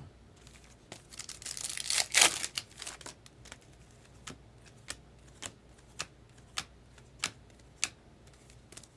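A trading card pack wrapper crinkling and tearing open about two seconds in, followed by a run of sharp clicks, a bit under two a second, as cards are flicked one by one through a stack.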